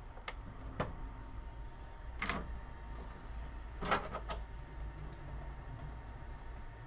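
A few scattered clicks and knocks as the da Vinci 1.0 3D printer's clear front door is opened and hands reach in to the printed parts on the build plate, the loudest about four seconds in, over a low steady hum.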